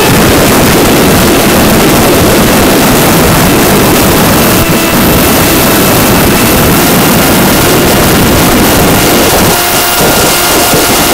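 Loud rush of airflow over the onboard microphone of a VAS Banshee foam flying wing in fast flight, with the thin steady whine of its 4S electric motor and propeller under it. The rush eases briefly near the end as the wing rolls.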